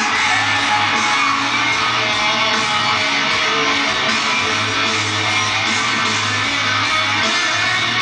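Rock music with guitar and a singing or shouting voice, played loudly and without a break.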